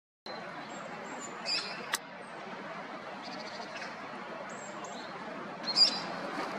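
Bird calls over a steady background rush that cuts in just after the start: a short harsh call about a second and a half in, a sharp click just after it, and a louder harsh call near the end, with faint high chirps in between.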